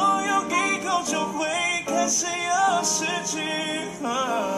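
A man singing a Mandarin pop song with musical accompaniment, his held notes sung with vibrato.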